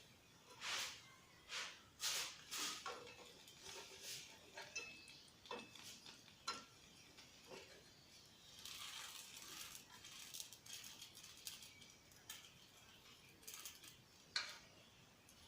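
Spatula scraping and tapping against a frying pan in short, irregular strokes while a filled crepe is folded up, with one longer scrape about nine seconds in.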